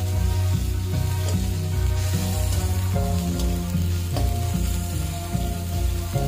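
Onion, tomato and spice masala sizzling as it fries in a kadai, stirred and scraped with a spatula, under background music.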